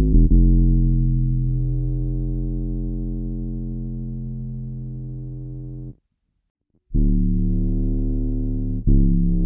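Electric bass played through an MXR M280 Vintage Bass Octave pedal: a couple of quick notes, then one long low note left to ring and slowly fade for about six seconds before it is cut off. After a second of silence, two more long low notes follow about two seconds apart.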